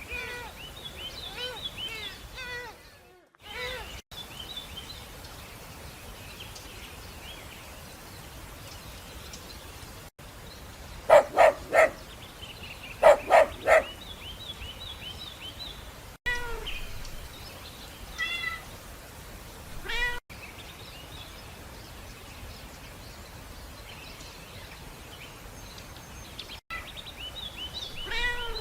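Cats meowing in a string of short clips: short mews scattered throughout, and two loud runs of three quick meows about halfway through.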